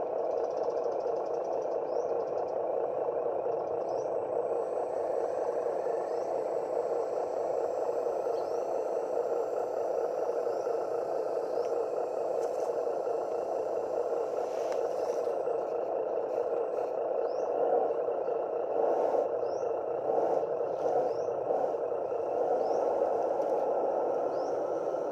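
Electric motors and gearing of a radio-controlled model construction machine running steadily, a continuous mechanical whir with faint short rising chirps every couple of seconds and occasional clicks.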